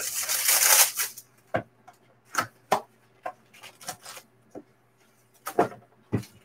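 Plastic wrapper crinkling for about a second, then a string of light, irregular knocks and taps as a cardboard box lid is lifted off and shrink-wrapped card packs are taken out and set down on the table.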